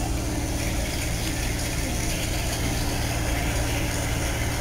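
Dump truck engine idling steadily with a low hum.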